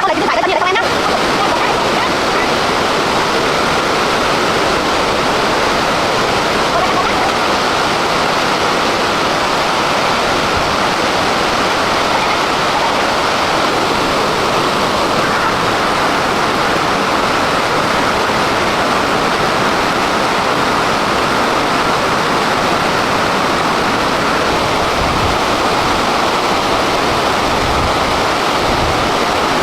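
Steady rushing water, loud and unbroken.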